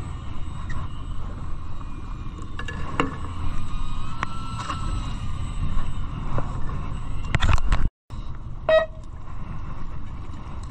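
Fishing boat's engine running with a steady low rumble, with a few sharp knocks and clicks from fishing tackle being handled at the rod holder.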